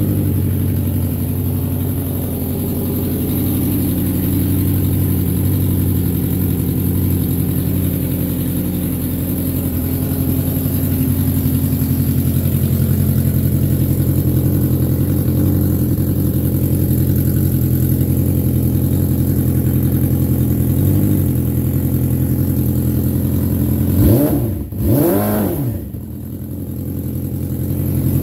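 A 2012 Yamaha R6's inline-four engine idling steadily, with two quick throttle blips near the end that rise and fall in pitch. The wrecked bike is newly running again after its fault codes were cleared.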